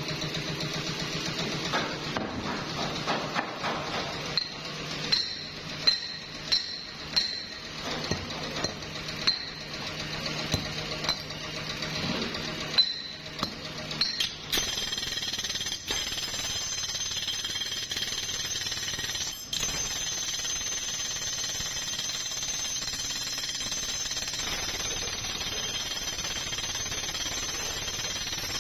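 Metalworking in a hub workshop: a machine hums steadily while metal is struck again and again, sharp ringing clanks about once a second. About halfway through the sound changes to a steady machine noise with a thin high tone and no more strikes.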